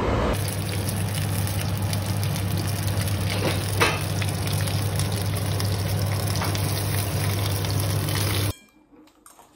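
Pan-fried dumplings sizzling in a frying pan beside a pot of noodle soup cooking on a gas hob, with a steady low hum under it and a single knock about four seconds in. The sound cuts off abruptly near the end.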